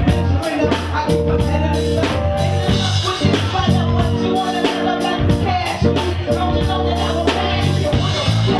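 Live hip-hop performance through a club PA: a beat with a deep bass line and a steady, regular drum pattern, with a woman rapping over it on a microphone.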